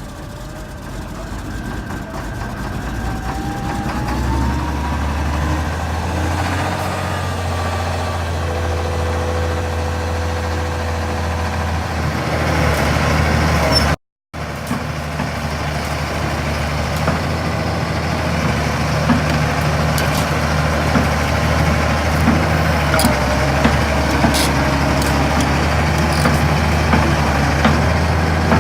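Caterpillar 235C excavator's diesel engine running steadily and growing louder over the first few seconds, with a whine gliding up in pitch. After a brief cut partway through, it runs on steadily with scattered sharp metallic clicks.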